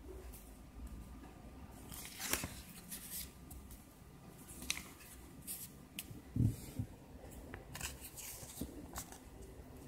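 Glossy paper pages of a printed catalogue being handled and turned: a series of short, irregular rustles and flicks, with a soft low bump about two-thirds of the way through.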